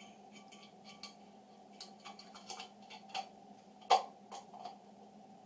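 Small metallic clicks and taps as the Remington 870 shotgun's trigger group is worked back into the receiver, with one sharper, louder click about four seconds in.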